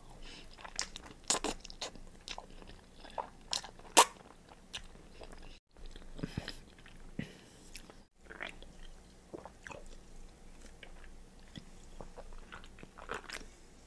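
Close-miked eating of a pig-foot boil: crunchy bites and chewing, with sharp clicks scattered irregularly, the loudest about four seconds in. The sound drops out briefly twice.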